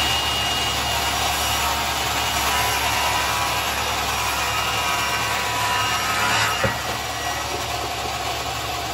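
Table saw running and cutting slowly through a thick cherry slab on a crosscut sled, the blade held back by the dense wood. A single sharp knock about six and a half seconds in, after which the sound is a little quieter.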